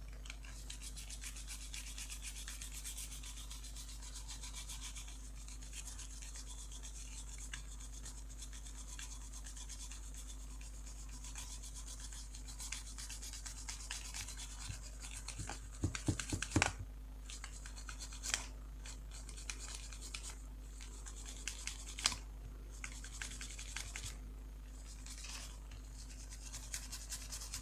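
A flat bristle brush soaked in alcohol scrubbing a laptop graphics card's circuit board: a fast, steady scratchy hiss of bristles on the board, with a few light clicks and knocks around the middle.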